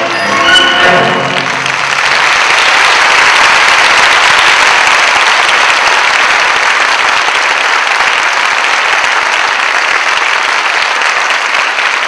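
The last notes of the ballet music, ending about a second and a half in, then steady audience applause.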